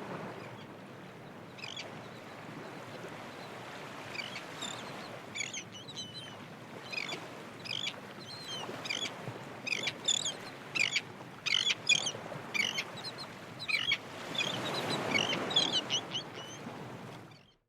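Many birds giving short, high chirping calls in quick runs over a steady background rush, which swells briefly near the end like a breaking wave.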